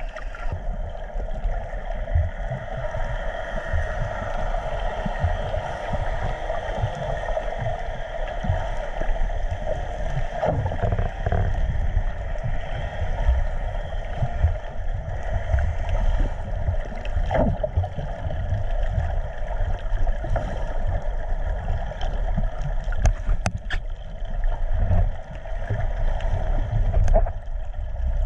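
Underwater water noise: a steady muffled rush with a low rumble and a faint steady hum. A few short clicks come near the end.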